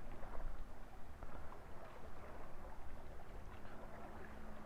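Low steady rumble of a distant engine, with a faint steady hum joining near the end, and a few small clicks of food being handled.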